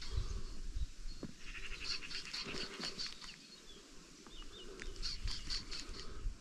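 Songbirds singing: one bird repeats a phrase of quick, high, evenly spaced chirps, heard twice a few seconds apart, with other softer bird calls in between.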